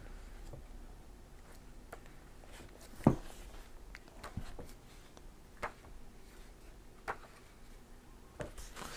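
Pages of a thick paperback book being leafed through: scattered soft paper rustles and flicks, the sharpest about three seconds in.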